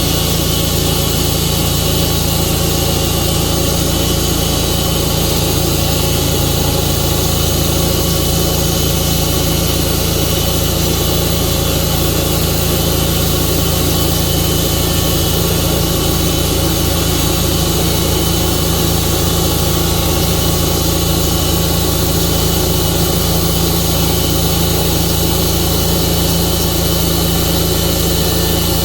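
Tru-Cut portable sawmill's engine running steadily at a constant speed.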